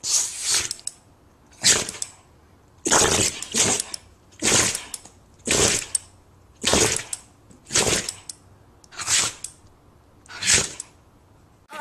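A run of about nine short, hissy sneezes, roughly one every second or so.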